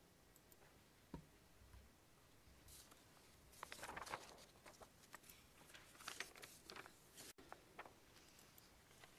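Faint rustling of paper sheets being leafed through and shuffled, with a few light clicks. It is busiest from about three and a half to seven seconds in, over near-silent room tone.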